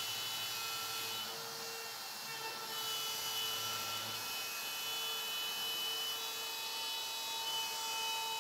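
Benchtop CNC router's 1-horsepower router motor spinning a 1/4-inch straight bit as it cuts through quarter-inch walnut plywood: a steady whine and hiss with a few thin tones that come and go as the machine moves along the cut.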